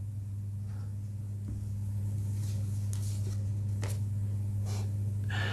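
A steady low electrical-sounding hum with a few faint soft clicks in the second half.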